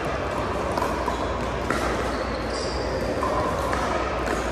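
Pickleball rally: several sharp pops of paddles striking the plastic ball and the ball bouncing on the hardwood court, echoing in a large gym. A short high squeak from shoes on the floor comes about halfway through.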